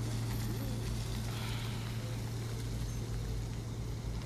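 Gendarmerie vans' engines idling nearby: a steady low hum over faint outdoor noise.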